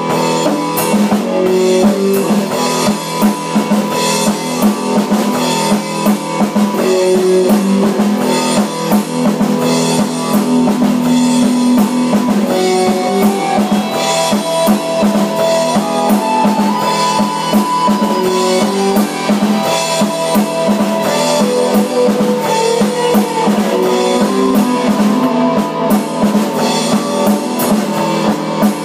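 Live rock jam: a drum kit played steadily under guitar, loud and continuous, with almost no deep bass in the recording.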